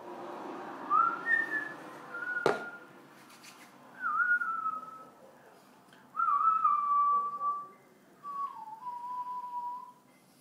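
A person whistling a slow tune in several held notes with slides between them, the last phrase falling. A single sharp click about two and a half seconds in.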